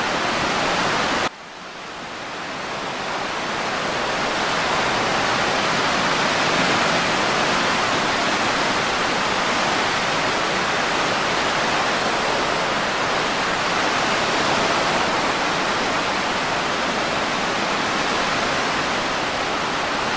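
Ocean surf and breeze heard as a steady rushing noise with no distinct wave surges. About a second in, it drops away abruptly and then fades back up over the next few seconds.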